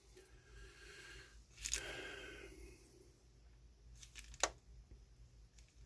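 Faint handling of small plastic lock actuator parts, with a few sharp clicks about one and a half seconds in and again past four seconds.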